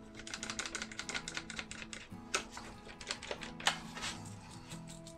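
Rapid clicking of one-handed quick bar clamps being ratcheted tight on a board, with a couple of louder clacks of clamps and wood about two and a half and three and a half seconds in. Soft background music plays underneath.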